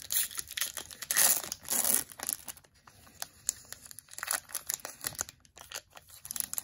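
Foil wrapper of a Topps baseball card pack being torn open and crinkled by hand: a few loud tearing rips in the first two seconds, then softer crinkling and rustling.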